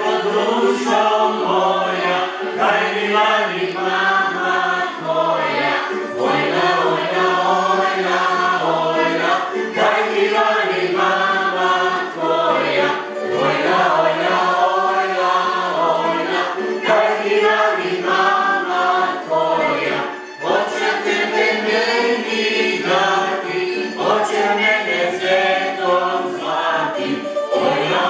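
A group of voices singing a Croatian folk dance song together, a chant-like choral melody without pauses.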